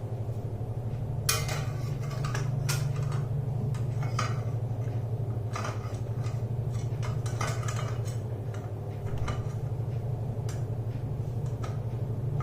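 Homemade stainless steel C-spanner clinking and scraping against the chain-adjuster hub of a single-sided swingarm as it is worked into the hub's slots: a scatter of light metal taps and clicks over a steady low hum.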